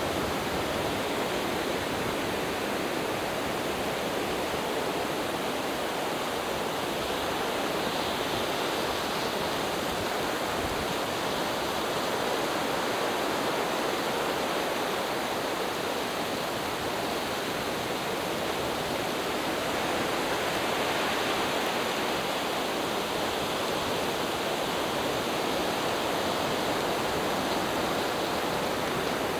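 Cone fountain firework burning: a steady rushing hiss of spraying sparks that holds at an even level throughout.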